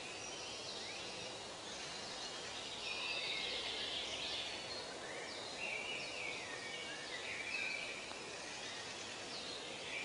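Outdoor ambience: several birds chirping and singing in short gliding phrases over a steady background hiss.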